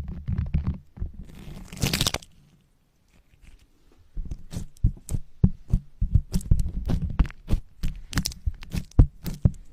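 Close-miked ASMR mouth sounds: rapid wet clicks and pops. A short hissing rustle comes about two seconds in, then a brief pause, then a dense run of clicks.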